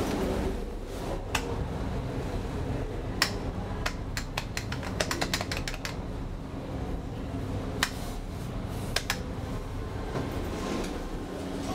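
Inside an elevator car: a steady low hum with sharp clicks of the car's push buttons being pressed, single clicks every second or two and a quick run of them about five seconds in.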